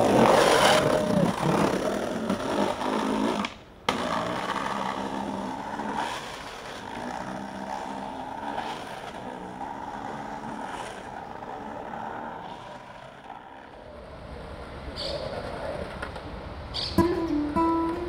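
Skateboard wheels rolling over concrete and paved sidewalk, with street traffic behind, and a few sharp clacks of the board near the end.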